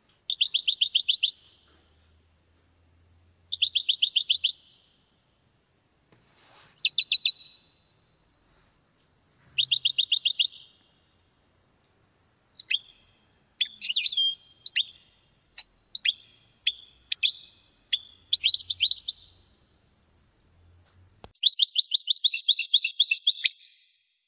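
European goldfinch singing: four trills of about a second each, roughly three seconds apart, then a run of short separate chirps and a longer trill near the end.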